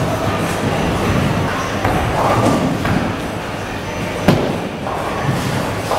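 A bowling ball thuds once onto the lane as it is released, about four seconds in, over the steady din of a busy bowling alley.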